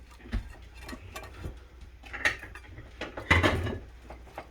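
Kitchen handling noises: scattered light clicks and knocks, with one louder clunk about three seconds in.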